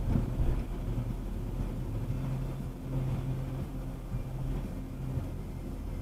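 A car's engine and tyre noise heard from inside the cabin while driving, a steady low hum that shifts slightly in pitch. There is a brief louder rush of noise right at the start.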